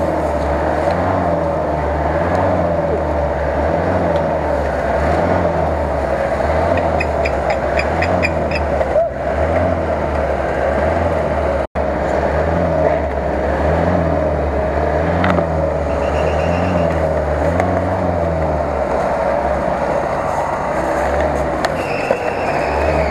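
Off-road 4x4's engine working hard in deep swamp mud, revved up and down over and over as the vehicle fights for traction.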